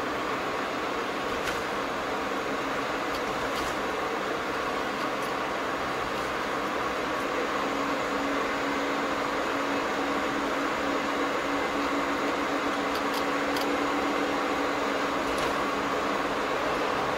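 Steady road and engine noise inside a moving car's cabin, with a low hum joining about eight seconds in.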